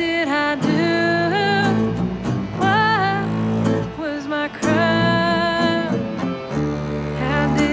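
A woman singing a slow country-folk song in long held notes with vibrato, accompanied by a metal-bodied resonator guitar and low bass notes.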